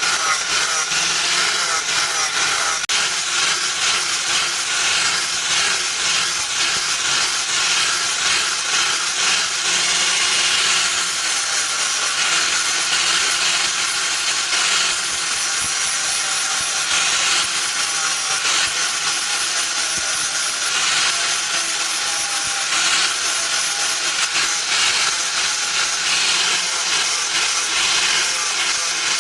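Power grinder working against the piece with a steady, rasping hiss.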